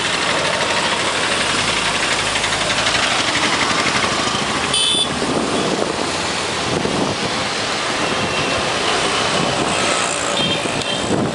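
Steady engine and road noise of busy city traffic, heard from within it. Brief high-pitched beeps sound about five seconds in and again near the end.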